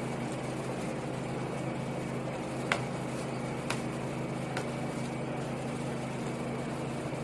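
A steady low mechanical hum, with three light clinks about a second apart near the middle.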